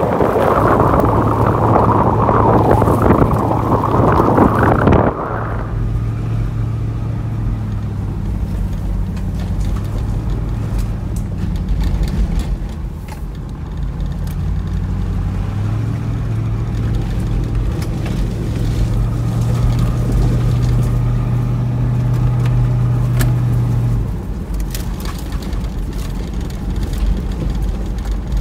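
Four-wheel-drive vehicle driving on a gravel track, heard from inside the cabin. For the first five seconds a loud rush of wind and road noise comes through the open side window, then cuts off suddenly. After that a steady low engine drone runs over the rumble of tyres on gravel, easing about 24 seconds in.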